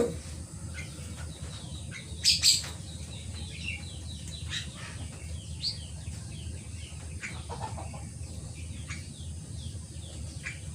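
Caged birds: scattered short chirps, with two brief loud flutters about two seconds in as a bird flaps in the cage.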